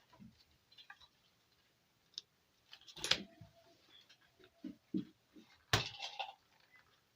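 Small clicks and knocks of a replacement amplifier IC being handled and fitted onto a keyboard's circuit board, with two sharper knocks about three and six seconds in.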